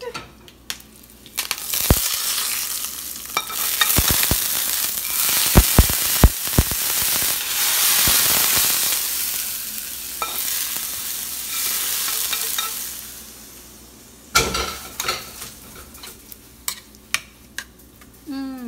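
Hot-oil tempering of mustard seeds, cumin, green chilies and curry leaves sizzling loudly, with sharp pops and spitting about halfway through. It dies away near two-thirds of the way in, and a knock and light clinks of utensils against the bowl follow.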